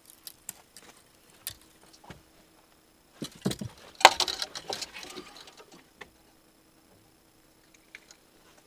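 Small clicks, taps and rustles of hands unhooking a just-landed fish and handling the hook and line in an aluminium boat, with a louder scuffle lasting about a second, about four seconds in.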